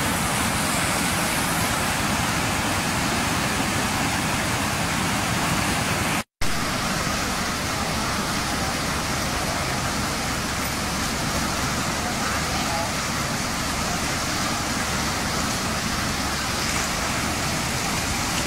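Flash-flood water rushing fast and turbulent, a steady loud rushing noise, cut off for a moment about six seconds in.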